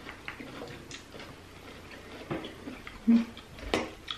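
Scattered light clicks and taps of a spoon against a ceramic soup bowl and plates while eating at a table, with a short dull bump about three seconds in and a sharper clack just after.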